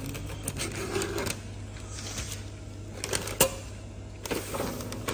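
Kitchen machinery humming steadily, with short bursts of mechanical clatter and clicks from a receipt printer printing order tickets.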